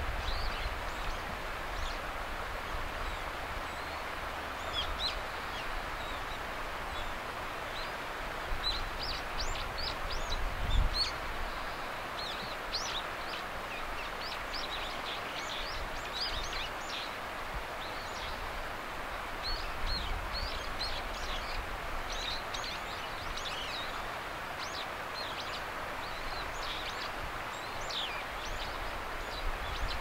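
Background birdsong: many short, high chirps and whistles from small birds, scattered throughout over a steady outdoor hiss. A brief low thump comes about eleven seconds in.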